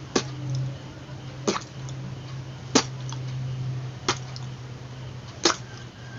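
Puffed-out cheeks struck with both fists, the trapped air popping out through pursed lips. Five sharp pops, evenly spaced just over a second apart.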